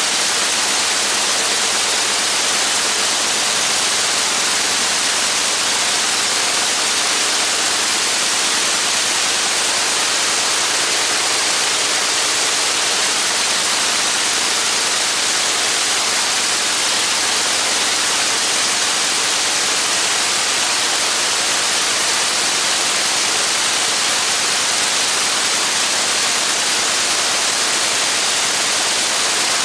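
Spirit of St. Louis replica's engine running steadily on the ground, heard as a loud, unbroken rushing noise with a faint, steady low engine note underneath.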